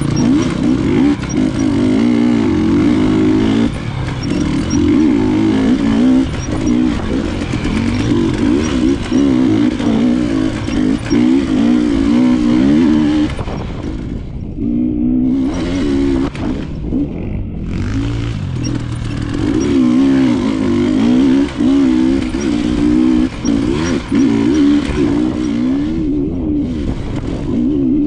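Enduro dirt bike engine under load, its pitch rising and falling constantly as the throttle is worked along a trail. The throttle is shut off briefly about halfway through, again a few seconds later, and once near the end.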